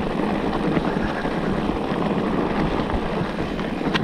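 Steady rushing noise of a mountain bike rolling down a wet dirt trail, with a sharp click near the end.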